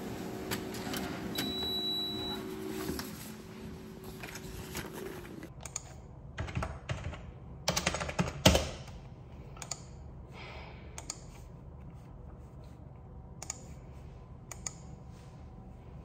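Scattered clicks and taps, thickest between about six and nine seconds in with one sharp loud click, after a steady low hum that stops about five seconds in.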